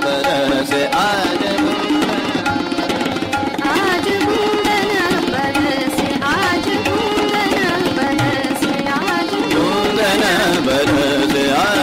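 Hindustani classical music in Raag Amrithavarshini: tabla playing a quick, steady run of strokes under harmonium, with a male voice singing fast, winding melodic runs.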